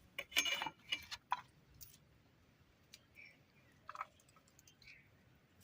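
Onions and garlic being peeled and cut by hand: a quick run of crisp clicks and crackles in the first couple of seconds, then a few faint scattered taps.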